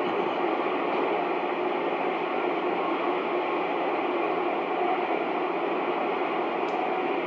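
Cobra CB radio's speaker giving a steady hiss of band static between transmissions, with the narrow, tinny tone of AM radio audio. A faint click comes near the end.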